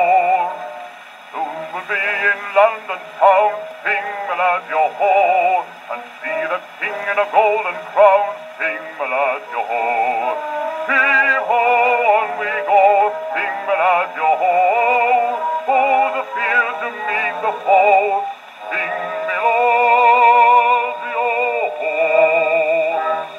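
A male bass singer's recorded voice with accompaniment, played from a 78 rpm shellac record on a wind-up portable gramophone through its acoustic soundbox. The singing has a wide vibrato, and the sound is thin, with no deep bass.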